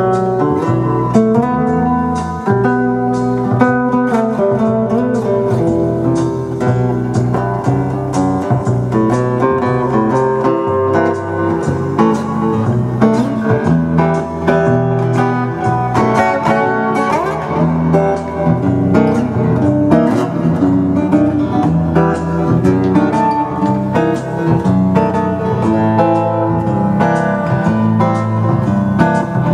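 Guitar music: a guitar playing a continuous run of plucked notes over a bass line.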